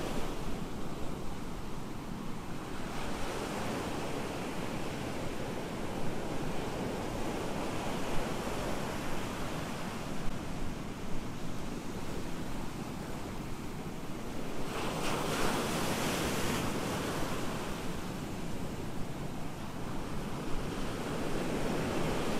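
Ocean surf breaking and washing on a beach, a steady rush with wind on the microphone. A louder, hissier surge comes about two-thirds of the way through.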